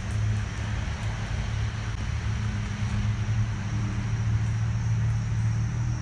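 A steady low hum, with a fainter steady high-pitched hiss above it.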